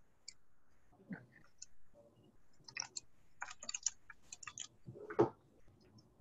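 Faint, irregular clicking of computer keyboard typing, in quick runs through the middle, with one louder tap near the end.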